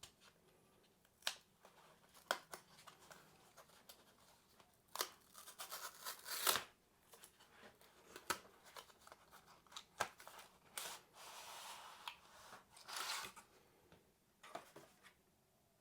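Cardboard and paper packaging of a Kindle box being torn and opened by hand: scattered rips, rubs and clicks, with a couple of longer tearing strokes past the middle.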